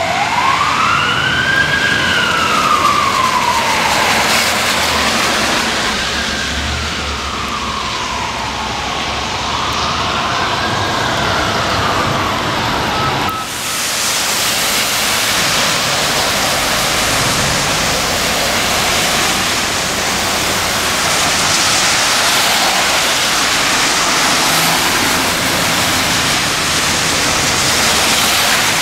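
Fire engine's electronic siren on wail, rising and falling about every four to five seconds and fading as the truck drives off. About halfway through it gives way to a steady hiss of rain and traffic on wet pavement.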